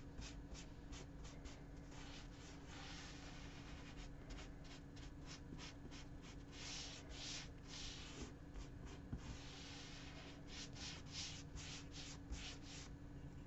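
A paint brush swishing acrylic paint onto the edges of an MDF board: runs of quick soft strokes, about three a second, with short pauses. A faint steady hum sits underneath.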